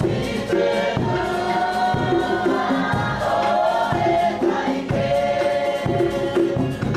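Music: a choir singing over steady percussion.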